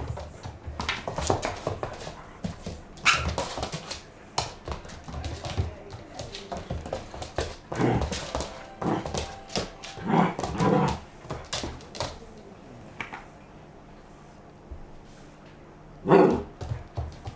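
Doberman whining and giving short barks in several separate outbursts, the loudest near the start and near the end.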